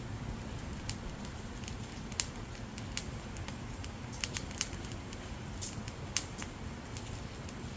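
Dried firewood burning, crackling with irregular sharp pops and snaps over a steady low rumble of the fire.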